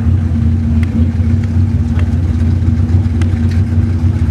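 Drag cars' V8 engines running at idle, a steady low sound with no revving: the Toyota 1UZ-FE quad-cam V8 in the Nissan Bluebird and the 5-litre V8 Commodore waiting to race.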